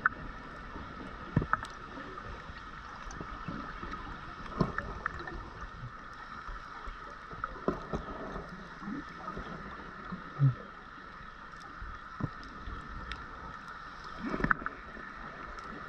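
Underwater sound from a scuba diver's camera: gurgling bursts of exhaled bubbles from the diver's regulator, the biggest near the end, with scattered sharp clicks over a steady high hum.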